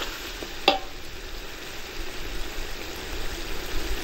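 Garlic, onion and tomato masala sizzling in oil in a large metal pot, with one sharp ringing knock of the metal ladle against the pot about a second in, then steady sizzling.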